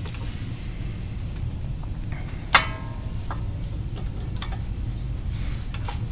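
A few sharp metallic clicks and clinks from tools and brake parts being handled, the loudest about two and a half seconds in with a brief ring, over a steady low hum.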